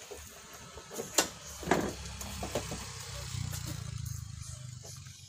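Two sharp cracks about half a second apart, the second with a short ringing tail. A motor vehicle engine then runs with a low steady hum for a couple of seconds.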